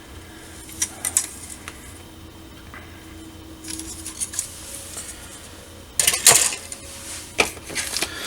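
Plastic model kit parts and bags being handled: scattered light clicks and taps, with a louder burst of clattering and rustling about six seconds in.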